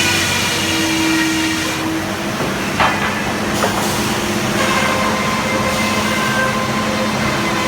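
Frick sawmill running: a steady mechanical hum with a high whine over it, and two short knocks near the middle.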